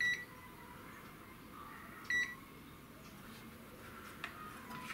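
Uni-T clamp meter giving two short electronic key beeps about two seconds apart as its buttons are pressed to zero the DC current reading, with a couple of faint clicks near the end.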